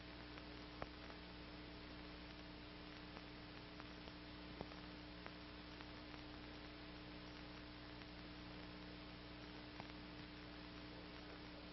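Near silence: the steady low hum and hiss of an old film soundtrack, with a few faint ticks scattered through it.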